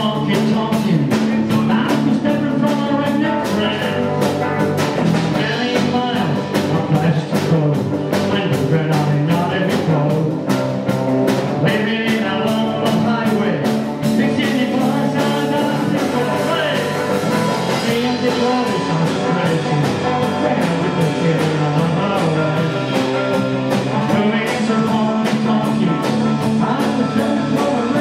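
Live honky-tonk country band playing: electric and acoustic guitars, bass guitar and drum kit keeping a steady beat.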